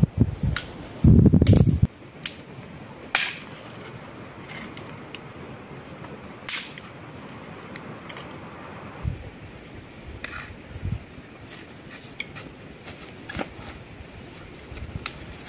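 Dry pine branches and twigs snapping off by hand in scattered sharp cracks, a dozen or so spread across the stretch. A short, loud low rumble about a second in.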